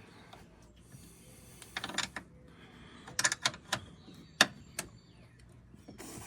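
Wrench working on the shifter's mounting bolts: a few short runs of sharp metallic clicks as the bolts are tightened to snug.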